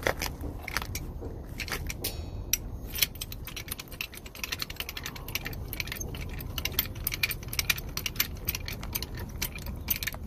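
Rapid metallic clicking and clinking of hand tools working on the truck's suspension, sparse at first and then dense from about three seconds in, over a steady low rumble.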